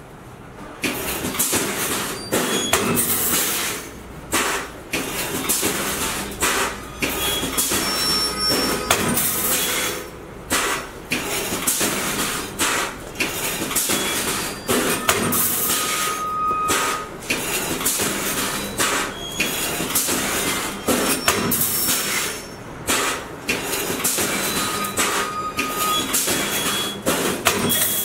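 Ladder mesh welding machine starting up about a second in and then running in repeated cycles: loud clattering and clanking knocks from its pneumatic welding head, with short pauses every two to three seconds.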